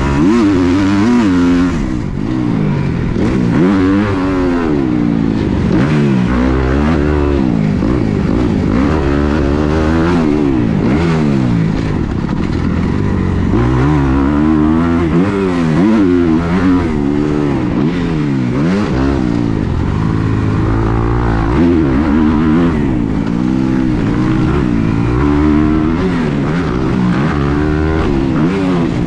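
Motocross dirt bike engine heard close up from on the bike, revving up and dropping back again and again as the rider accelerates and rolls off the throttle around the track, the pitch climbing and falling every second or two.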